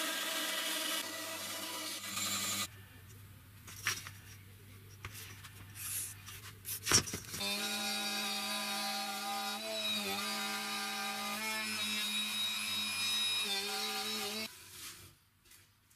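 A small motor running with a steady hum that dips briefly in pitch a few times. In a quieter stretch in the middle it stops, with scattered knocks and a sharp thump, then runs again and cuts off near the end.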